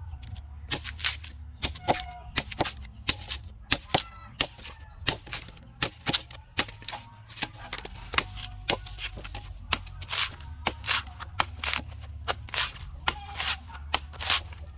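A blade chopping into a young coconut, with rapid sharp strikes in an irregular run of about two to three a second, over a steady low hum.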